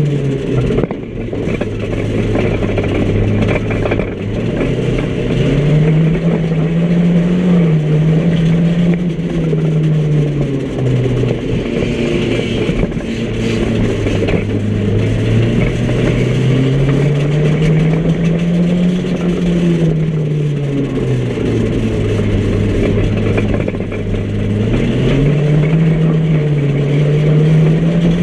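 Micro banger's small engine, heard from inside the stripped cabin, running hard and revving up and dropping back as the driver accelerates and eases off: the note climbs and falls three times.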